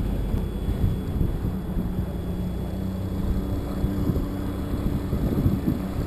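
Fishing boat's outboard motor running under way, a steady low drone, with wind buffeting the microphone.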